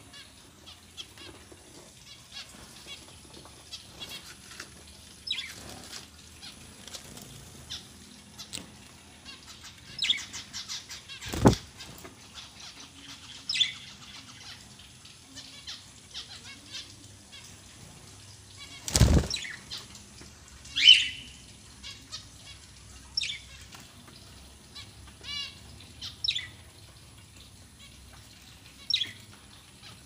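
Budgerigars giving short chirps every few seconds, with light clicking as a beak pecks at a salt block and wings flutter. Two sharp thumps, about eleven seconds in and again about eight seconds later, are the loudest sounds.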